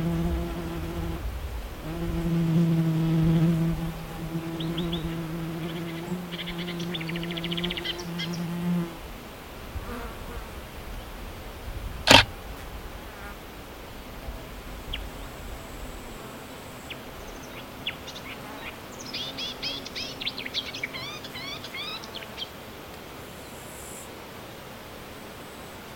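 A flying insect buzzing close by with a steady low hum, cutting in and out and stopping about nine seconds in. A single sharp click about halfway, and short bursts of fast, high chirping bird song, the longest near the end.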